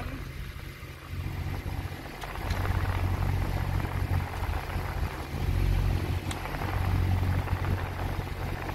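A boat engine running while motor sailing: a low, steady rumble that swells and eases every couple of seconds.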